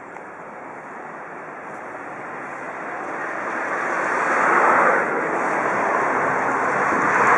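Cars passing close by on the road, their tyre and engine noise swelling to a peak about halfway through and again near the end as a second car goes by.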